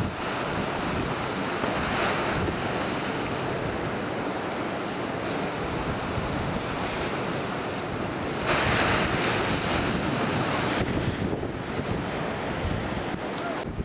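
Ocean surf breaking and washing, with wind rumbling on the microphone. The surf swells louder for a couple of seconds from about eight seconds in.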